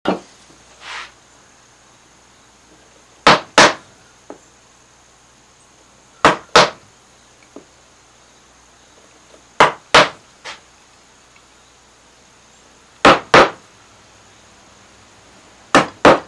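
Wooden mallet striking a chisel to drive it into Alaskan yellow cedar, setting in the outline of a carved pattern. The sharp blows come in pairs, about every three seconds, with faint taps between them as the chisel is moved along the line.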